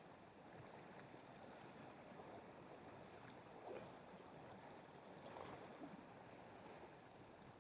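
Near silence: the faint steady rush of river water, with two slightly louder moments near the middle.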